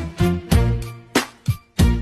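Music track with a punchy drum beat, deep bass and held notes between the hits.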